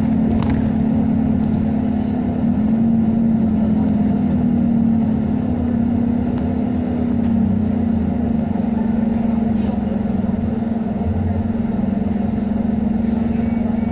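Diesel engine of a Dennis Trident double-decker bus with Alexander ALX400 body, heard from on board, running steadily as the bus slows and draws up, then settling to a steady idle from about two-thirds of the way in. Its engine has been refitted so that it sounds like a Trident Enviro400.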